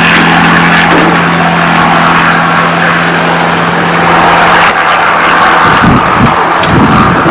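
Loud, steady engine drone with a constant low hum. Irregular low rumbles join it from about six seconds in.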